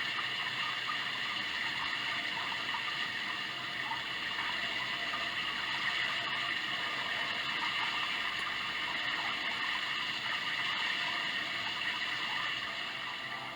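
Sound Oasis ambient sound machine playing a steady water-like hiss, like rushing water.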